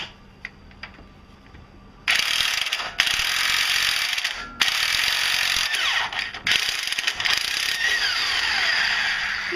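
Electric impact wrench hammering an 18 mm bolt loose, starting about two seconds in and running in four bursts with brief breaks between them.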